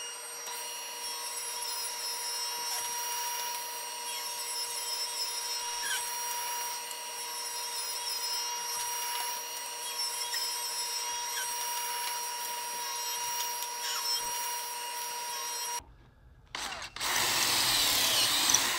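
Table saw running steadily with a whine while ripping boards into narrow strips, a dust collector running with it. Near the end, after a short break, a cordless drill bores a pocket hole through a pocket-hole jig.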